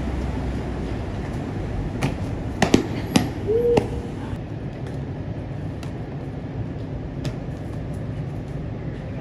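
Steady low background rumble, like distant traffic, with a few sharp knocks about two to three seconds in and a brief rising tone just after.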